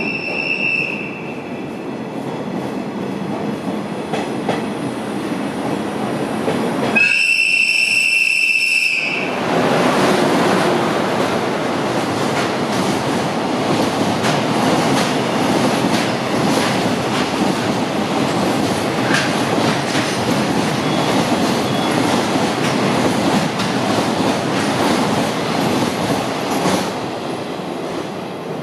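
Container freight train running through the station at speed. A high train whistle sounds for about two seconds, some seven seconds in, then wheels clatter and rumble steadily as the wagons pass, easing off near the end.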